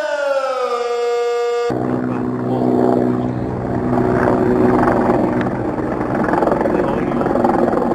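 A siren winding down, its pitch falling. About two seconds in it is cut off abruptly by a loud, steady noise with low humming tones in it.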